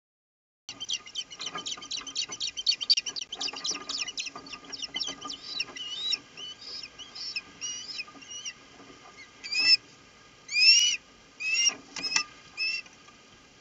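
Ospreys calling at the nest as the mate flies in with a fish: a fast run of sharp, high chirps, then slower, separate whistled calls that sweep upward in pitch, the loudest few near the end.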